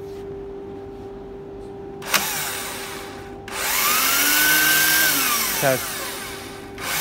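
AEG cordless drill, mounted in a homemade drill press and run off a 24 V transformer, switched to reverse. Its motor runs briefly about two seconds in, then starts again with a rising whine that holds steady, winds down near six seconds and starts once more at the end.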